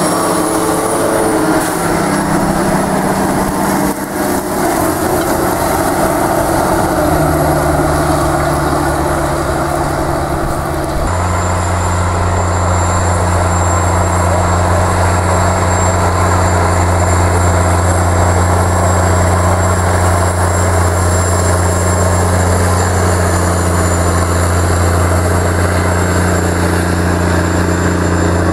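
Large tractor diesel engines running steadily under load, with a Case IH Quadtrac 485 crawler tractor close by at first. About eleven seconds in the sound changes abruptly to a steadier, deeper engine drone.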